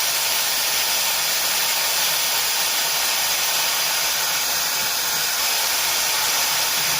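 Makita electric drill running steadily under load, drilling a pilot hole into a steel plate.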